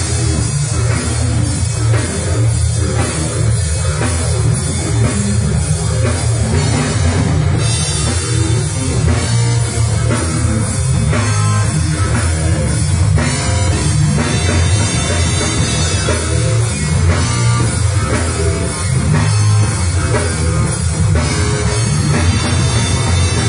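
Live rock band playing a heavy metal cover, with distorted electric guitars over a drum kit and cymbals, loud and steady without singing.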